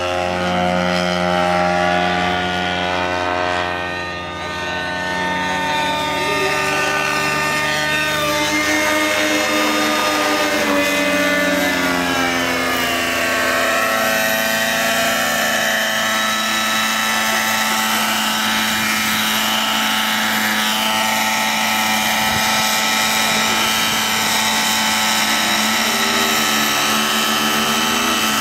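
Radio-controlled model aircraft engines. A stunt biplane's engine rises and falls in pitch as it manoeuvres. From about halfway, a model helicopter's engine and rotor run at a steady high pitch while it hovers low, with a brief wavering near the end.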